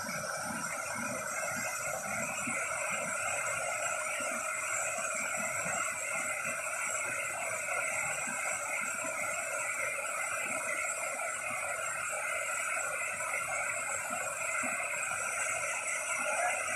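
Steady rush of a small waterfall cascading over rocks into a pool.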